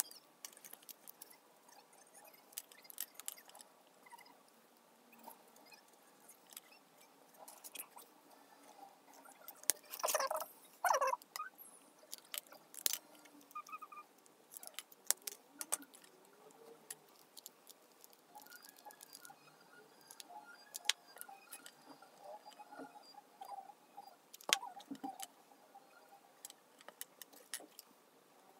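Small scissors cutting thin wooden popsicle sticks, with scattered light clicks and taps of sticks being handled on a tabletop; two louder crunchy cuts come about ten and eleven seconds in.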